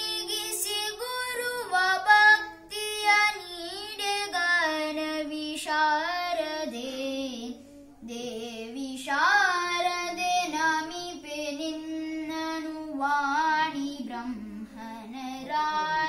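A child singing a devotional song without accompaniment, in held, gliding melodic phrases, with a short breath break about eight seconds in.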